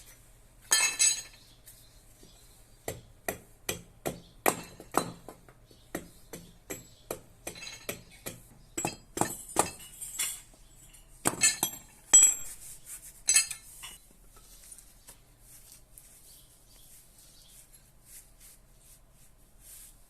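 A series of sharp metallic clinks and taps, like metal tools being knocked or set down: a louder clink about a second in, then about two taps a second for several seconds, a few louder clinks near the middle, and faint light ticks after that.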